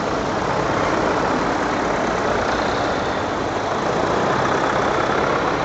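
Engines of several vintage tractors running steadily as they drive past one after another at close range.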